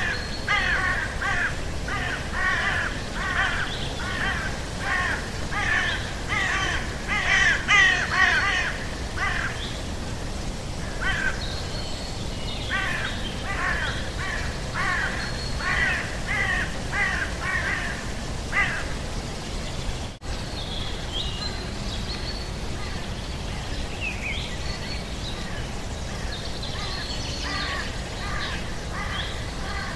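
Birds cawing over and over, harsh calls coming about two a second. After a sudden break about twenty seconds in, the calls turn sparser and higher.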